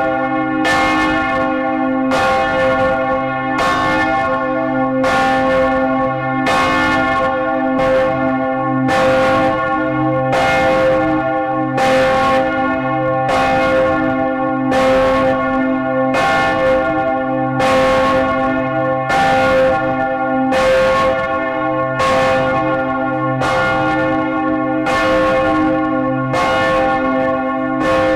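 Large bronze swinging church bells of St. Catherine's, Gdańsk, heard close up in the belfry, struck by their clappers in a steady stroke a little less than once a second, each stroke ringing into the next with a deep hum underneath. The bells are tolling for a funeral.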